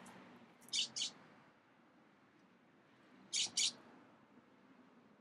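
A bird calling: a quick pair of short high chirps, given twice about two and a half seconds apart.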